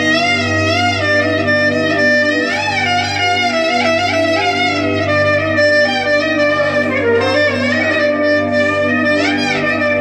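Clarinet playing a free-rhythm hicaz taksim, a Turkish improvisation in the hicaz makam. It holds long notes with wide vibrato and sliding ornaments, the line slowly descending, over a steady low drone.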